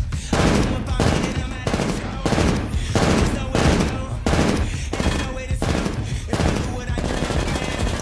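Rapid gunfire, about two to three shots a second in a steady string, thinning out near the end, over music.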